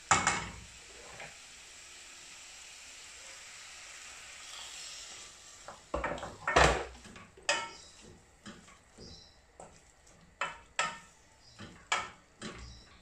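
Wooden spatula stirring green beans and carrots in a stainless steel pan on the stove. A steady sizzle from the pan for the first few seconds gives way, about six seconds in, to a run of sharp knocks and scrapes of the spatula against the pan.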